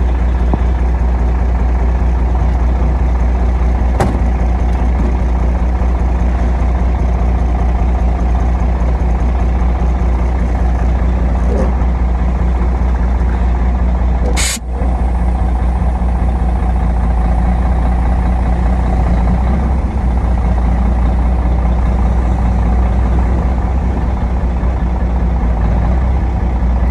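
Semi truck's diesel engine running steadily with a deep drone. There is one brief sharp sound about halfway through.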